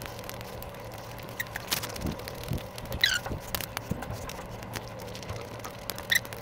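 Close-miked eating of pani puri: wet chewing and crunching of the crisp puri shells, with many sharp mouth clicks and a few short squeaky sounds falling in pitch, about three seconds in and again near the end.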